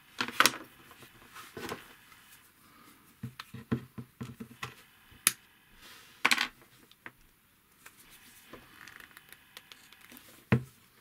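Scattered clicks and knocks of a plastic cigarette-lighter plug and its coiled cord being handled on a wooden tabletop, with a few sharper knocks standing out.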